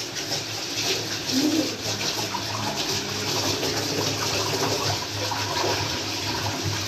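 Water running and splashing in a metal bowl as a bunch of lemon basil (kemangi) leaves is washed by hand to rinse off the dirt.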